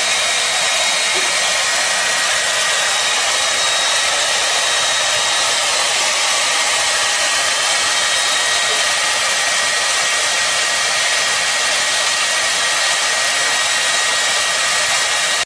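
Hand-held hair dryer running steadily: an even, unbroken rush of blown air with a thin steady high whine.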